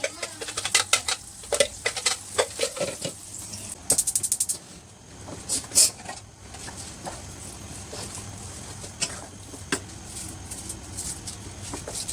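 Cooking utensils clicking and scraping in a pan, with scattered sharp taps and a quick rattling run of taps about four seconds in.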